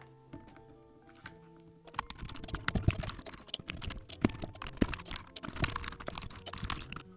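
Typing on a NuPhy Halo 75 mechanical keyboard fitted with Milky Yellow linear switches: a quick, uneven run of keystroke clacks starting about two seconds in, over background music.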